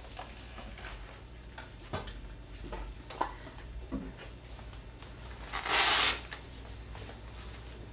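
A blood-pressure cuff's Velcro ripped open once, a short loud tearing rasp about six seconds in, after a few faint handling knocks.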